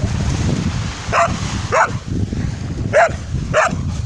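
Spanish water dog barking: four short barks, about two close together just over a second in and two more around three seconds in, over a steady low rumble.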